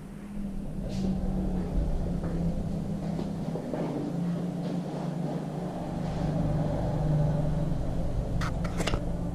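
A steady low hum that wavers slightly, with two or three sharp clicks near the end.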